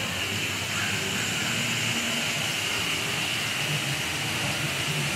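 Steady hiss of outdoor background noise, with a constant high-pitched band running through it and no distinct events.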